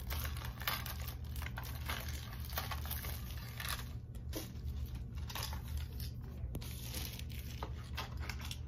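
A small cardboard toy-figure box being opened by hand, with irregular crinkling and tearing of its packaging.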